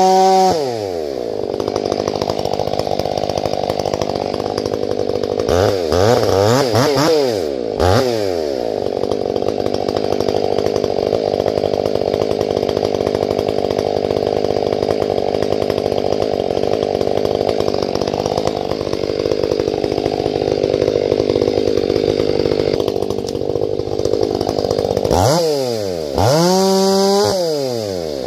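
Two-stroke chainsaw bucking tamarack: it revs up and down in short bursts, then holds a steady full-throttle pitch through a long cut of about fifteen seconds, then revs up and down again near the end.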